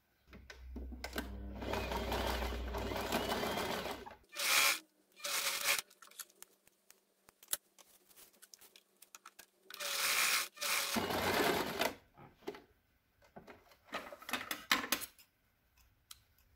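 Janome electric sewing machine stitching in two runs: a long one of about four seconds at the start, and a shorter one of about two seconds near the middle. Short bursts of fabric handling and a scatter of sharp clicks come between and after the runs.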